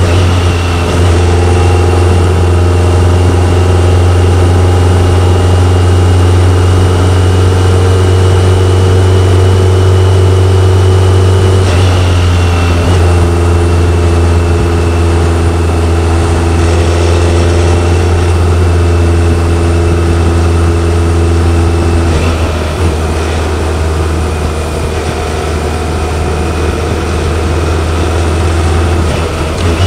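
BMW K1100LT's inline four-cylinder engine running steadily under way, its pitch changing in steps a few times as the revs change.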